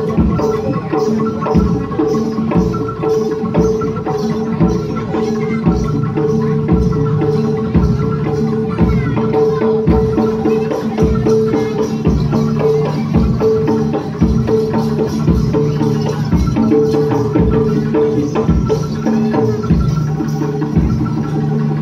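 Live jaranan ensemble music: drums keeping a steady, even beat under held melodic tones.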